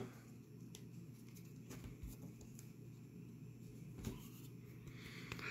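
Quiet room tone with a steady low hum, and a few soft clicks from trading cards being handled.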